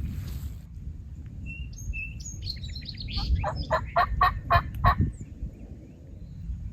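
Wild turkey gobbler gobbling: one fast rattling gobble of about eight notes near the middle, over a low rumble.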